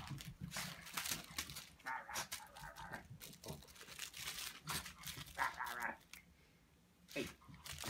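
Shih Tzu dog at rough play with a person's hands and a toy: a run of scuffling and crinkling noises, with two short bursts of dog vocalising about 2 and 5.5 seconds in.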